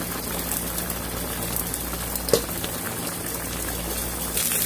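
A spicy braise of Atka mackerel and potatoes bubbling at a simmer in a pot, over a low steady hum. One brief click comes a little over two seconds in.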